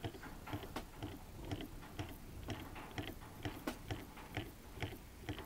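Rotary compressor pump turned slowly by hand, its rotor and spring-loaded vane making faint, uneven clicking, a few clicks a second. The builder is unsure of the noise's cause and puts it down, probably, to the oil inside.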